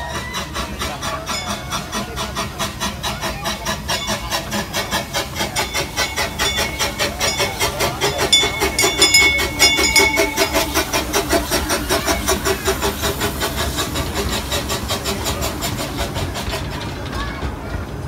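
Miniature steam locomotive chuffing in a quick, even rhythm as it pulls its passenger cars along. A high steady tone joins in for a couple of seconds around the middle.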